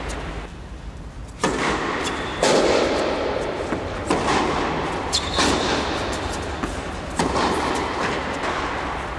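Tennis rally on an indoor court: sharp racket strikes and ball bounces every one to two seconds, each ringing on in the echoing hall.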